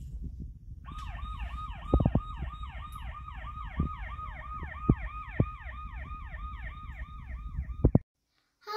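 Electronic toy fire-engine siren from a children's sound book, a rapid wail falling in pitch about four times a second, which starts about a second in and cuts off abruptly near the end. A few knocks from handling sound under it.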